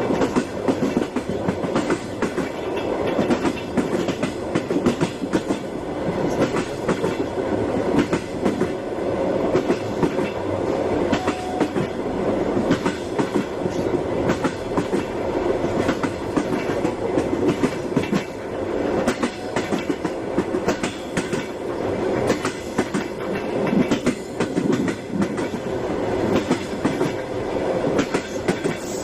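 A train running on the rails, with a steady rumble and dense clattering from the wheels on the track.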